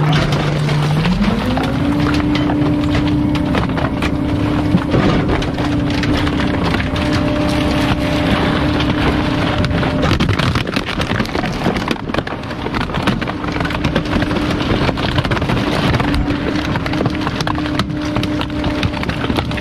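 Rear-loader garbage truck's hydraulic packer running a compaction cycle: the engine speeds up about a second in and holds a steady higher pitch while the blade sweeps the hopper, with plastic cracking and crunching as a storage tote is crushed. The engine tone drops away about halfway through and comes back a few seconds later.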